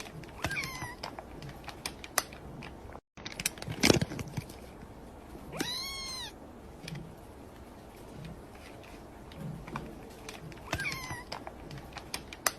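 A cat meowing three times: short calls about a second in, in the middle and near the end, the first and last falling in pitch, the middle one rising then falling. Scattered faint clicks throughout, and one sharp knock around four seconds in that is louder than the meows.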